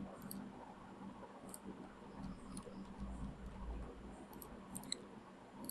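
Faint, scattered clicks of a computer mouse and keyboard, about half a dozen short ticks spread over a few seconds, over a low steady hum.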